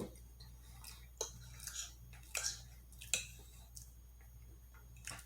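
Close-miked eating sounds: chewing with a handful of short, irregular mouth clicks and smacks over a low steady hum.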